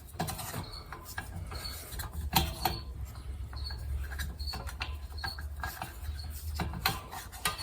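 Scattered light clicks and small metallic taps from handling a wrench and a just-removed air compressor pressure gauge, with faint squeaks and a low hum in the middle of the stretch.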